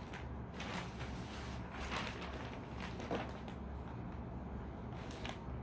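Wrapping paper being handled for gift wrapping, rustling and crinkling in several short, separate rustles.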